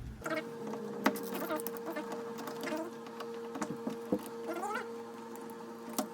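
Screwdriver backing out the screws that hold a door deadbolt, with irregular clicks and short squeaks of metal on metal.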